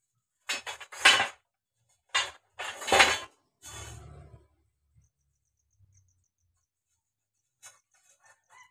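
Metallic clinking and scraping of steel drill pipes as they are handled and brushed with oil at their threaded ends, in four short bursts in the first half.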